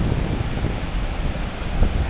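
Wind buffeting the phone's microphone, a low irregular rumble over a steady rushing noise, briefly louder near the end. The rushing fits the distant roar of Victoria Falls.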